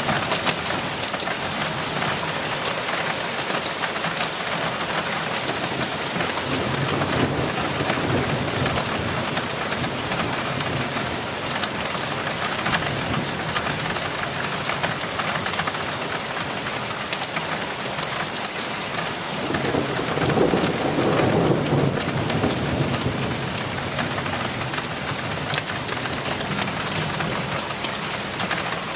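Steady rain falling, with a dense patter of individual drops, and thunder rumbling: a low rumble about a quarter of the way in and a louder one about two-thirds of the way in that swells and fades over a few seconds.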